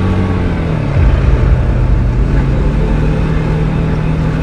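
Quad bike engine running while riding along a dirt track, its pitch dropping about a second in and climbing again later on.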